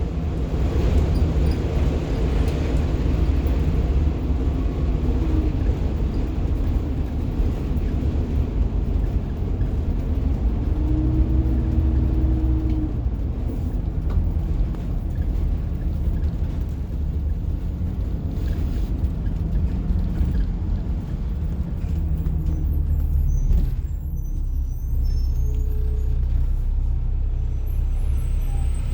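Cabin noise of a 1990 Blue Bird All American rear-engine diesel school bus on the move: the diesel engine running steadily with a low hum, mixed with wind noise blowing in through the gaps in the door and body.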